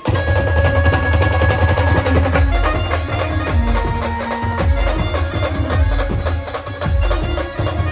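Indian brass band playing, with heavy bass drum and rapid percussion strokes under a sustained brass melody; the music comes in suddenly at the very start.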